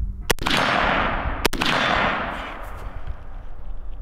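Two single rifle shots from an M16A1 (5.56 mm), about a second apart, each trailing off in a long echo.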